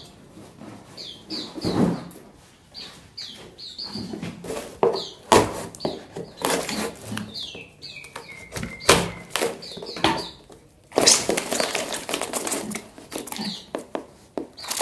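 Small songbirds chirping in short repeated calls, with wing flapping, sharp knocks and rustling as they move about in their box or cage; a longer burst of flapping and scuffling comes about eleven seconds in.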